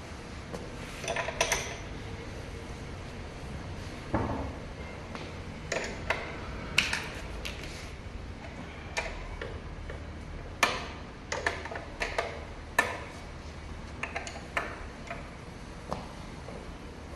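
Irregular clicks, taps and light metallic knocks of hand tools and parts being handled during repair work on an electric scooter's wheel.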